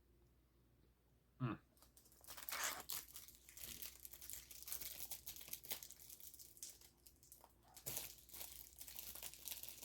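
A short thump about a second and a half in, then the crinkly wrapper of a pack of powdered donuts being crumpled and pulled at as it is worked open, a package that is hard to get open.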